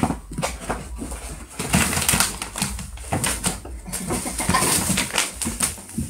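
Rustling, scraping and light knocking, many times over, as a baby monkey clambers about, tugging on a cord and on a mosquito net.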